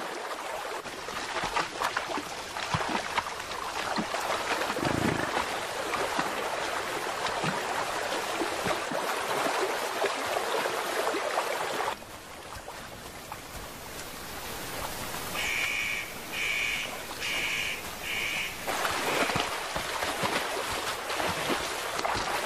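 European bison wading through a shallow river, their hooves splashing in the water. About halfway through, the splashing gives way to quieter running water, and a high-pitched call sounds four times in quick succession. The splashing returns near the end.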